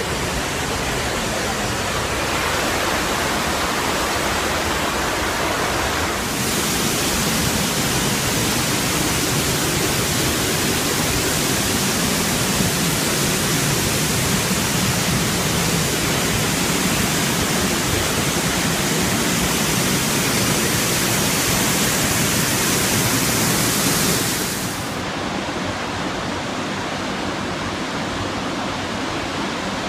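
Steady rush of a waterfall heard up close from behind the falling water, a dense hiss of water and spray. About 25 seconds in it changes abruptly to a quieter, duller rush of falling water heard from farther off.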